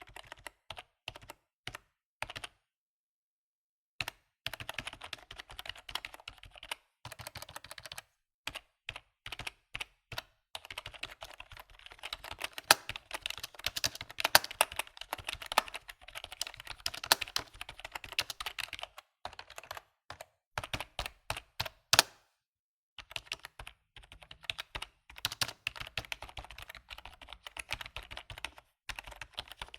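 Typing on a computer keyboard: runs of rapid keystrokes broken by a few short pauses, with now and then a key struck noticeably harder than the rest.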